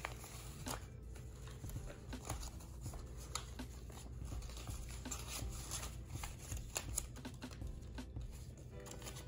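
US paper banknotes being handled and counted by hand: irregular crisp flicks and rustles of the bills, with a few sharper snaps.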